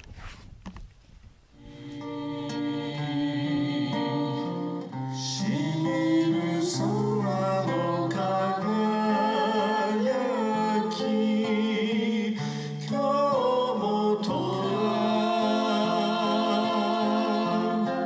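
A second or so of rustling, then live acoustic music: guitar accompaniment, joined by a man and a woman singing together.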